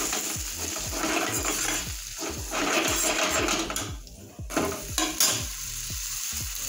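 Diced tomatoes sizzling in hot oil in a steel frying pan, stirred with a steel ladle that scrapes and knocks against the pan, with a few sharp clinks about five seconds in.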